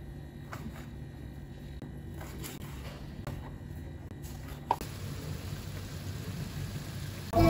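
Kitchen knife slicing raw meat on a plastic cutting board: a few faint, scattered taps and clicks, with one sharper click about four and a half seconds in.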